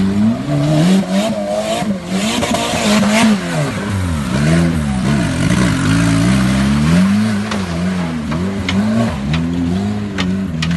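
Off-road 4x4's engine revving, its pitch rising and falling again and again as it is driven through deep mud, with a few sharp clicks in the second half.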